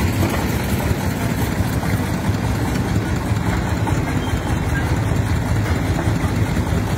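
Diesel engines running steadily at a low idle: a homemade three-wheeled công nông farm truck and a Komatsu PC50 mini excavator working beside it.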